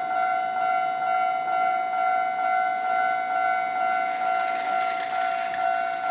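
Japanese railway level-crossing warning bell ringing, an electronic ding on a steady pitch repeating about twice a second, the signal that a train is approaching. Around five seconds in, a swell of rushing noise comes up beneath it.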